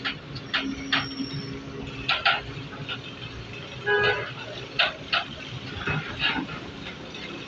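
A vehicle horn gives a short toot about four seconds in, over a running engine, with sharp knocks repeating every half second to a second.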